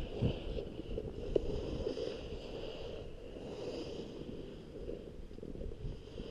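Skis hissing and scraping over snow, swelling and fading every couple of seconds, with wind rushing over the microphone.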